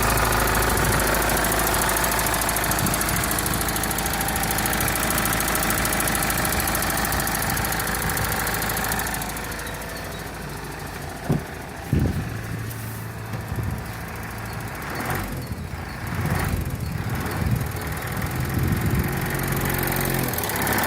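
Mitsubishi 4D56T turbo-diesel engine running with a knock that the owner traces to a single fuel injector, though the injectors tested fine on a bench. About nine seconds in it becomes quieter, with two sharp clicks, then the engine note rises and falls near the end.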